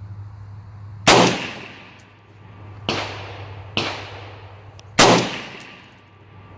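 Four rifle shots, each with a short ringing echo. The shot about a second in and the one near the end are the loudest; the two between them are quieter.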